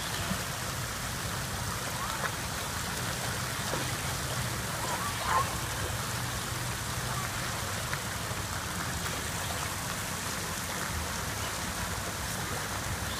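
Steady splashing of water as a boy swims across a pool, his arms and kicking legs churning the surface.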